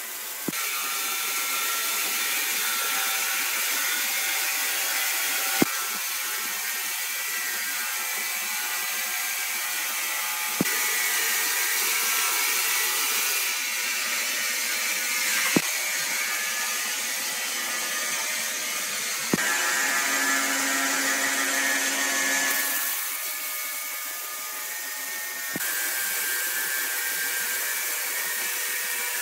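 Horizontal band sawmill cutting lengthwise through a large log: a steady mechanical whine over a hiss. The sound shifts abruptly every few seconds, with a short click at each shift.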